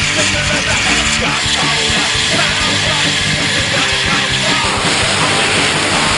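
Loud rock music with a driving beat. About four and a half seconds in, the music gives way to a dense, steady hiss.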